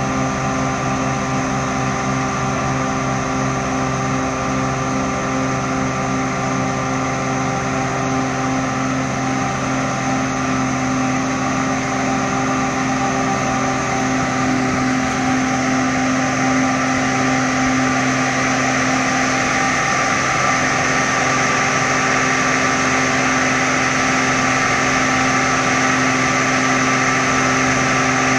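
Self-propelled snap bean harvester running steadily: a constant engine and machinery hum at an even pitch that grows slightly louder in the second half.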